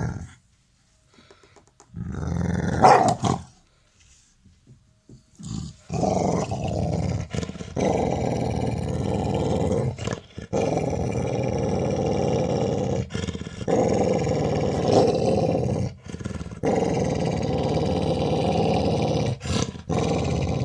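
A dog growling over its ball, a play growl of mock aggression rather than real threat. One short growl about two seconds in, then from about six seconds a long, continuous rumbling growl broken only by brief pauses for breath.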